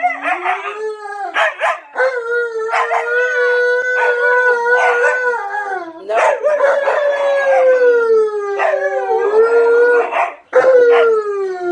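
Husky-type dog howling back, several long drawn-out howls in a row with short breaks between them. Each howl holds its pitch or slides slowly downward.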